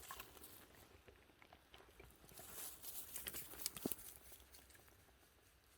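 Faint crackling and rustling of dry leaf litter and twigs on a forest floor stirred underfoot, a scatter of small clicks that gets busiest about two and a half to four seconds in.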